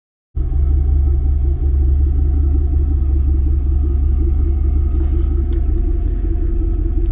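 Vehicle engine running with a steady deep rumble, heard from inside the cab; it starts abruptly about a third of a second in.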